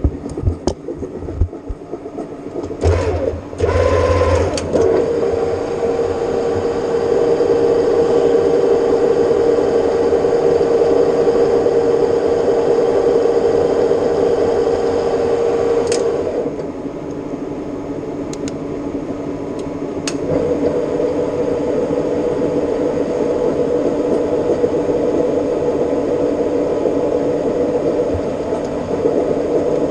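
Metal lathe turning stainless steel, running steadily with a held whine. The whine drops away for a few seconds past the middle and then comes back, with a few sharp clicks near the start.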